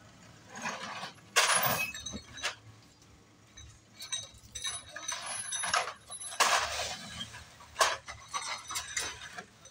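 Plastic crates full of glass soda bottles being set down and stacked, the bottles clinking and clattering with each crate. The clatters come irregularly, every second or two, the loudest near the start.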